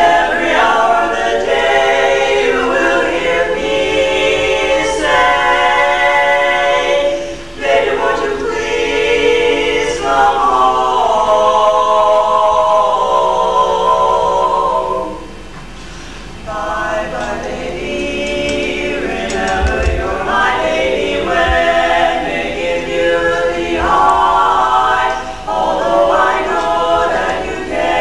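A women's vocal quartet singing a cappella, four voices in harmony, with a short break about fifteen seconds in before the singing resumes.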